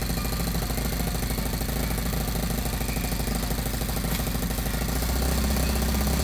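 Honda Grand's single-cylinder four-stroke motorcycle engine idling steadily with an even, rapid beat after its cylinder head overhaul, a little louder near the end.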